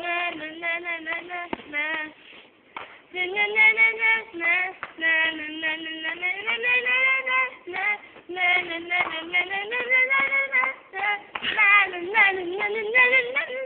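Upbeat pop song with sung vocals playing, a dance track with a bright group chorus.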